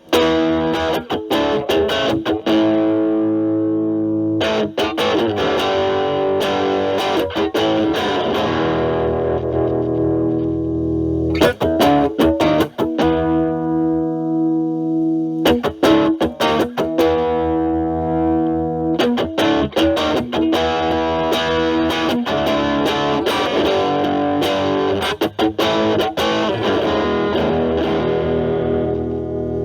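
Stratocaster electric guitar played through a Metal Pedals Rawhide overdrive pedal at a low gain setting (about 3, kick toggle down) into a Marshall Valvestate amp's clean channel, giving a lightly overdriven tone. Chords are strummed, and one is left ringing and fading about midway.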